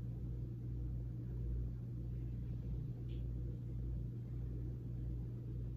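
Steady low hum of room background noise, with no other distinct sound.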